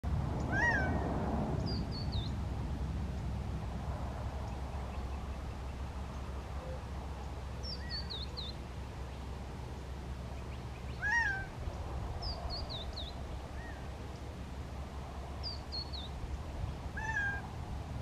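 Male Gambel's quail calling: a single loud, down-slurred note repeated every few seconds, strongest near the start, about eleven seconds in and near the end, with fainter ones between.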